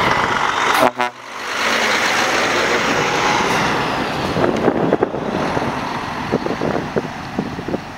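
Volvo FH16 heavy-haul truck, with its 16-litre straight-six diesel, driving past with a multi-axle low-loader; the engine and tyre noise swells as it passes, then slowly fades as it pulls away. A short horn toot sounds about a second in, and scattered knocks follow in the second half.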